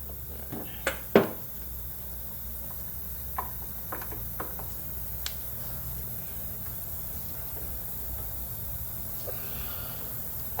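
A few irregular metallic clicks and knocks from a wrench and the bolt and pulley hardware as an idler pulley is worked off a mower deck, the loudest about a second in, over a low steady hum.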